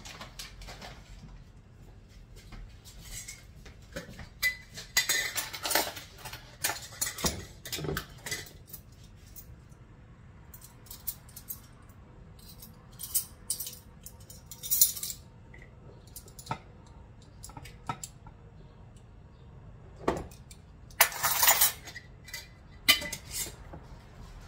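Metal measuring spoons on a ring jangling and clinking, with scattered knocks of kitchen utensils on the counter. The rattling comes in bunches, about five seconds in and again near the end.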